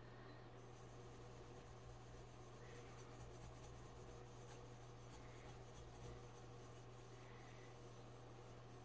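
Faint rubbing as a scrubber pad and sponge are worked over a silver-plated goblet to scrub off tarnish, over a steady low hum.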